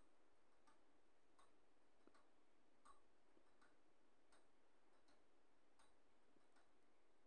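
Near silence with faint, evenly spaced ticks, about one every three-quarters of a second.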